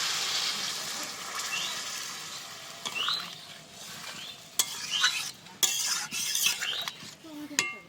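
Pumpkin pieces sizzling in mustard oil in a kadai, the sizzle fading over the first few seconds, then a metal spatula scraping and clinking against the pan several times as it is stirred.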